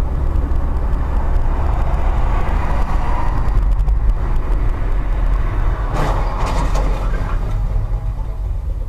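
Steady low road and engine rumble of a moving car, heard inside the cabin through a dashcam microphone. A short cluster of sharp knocks comes about six seconds in.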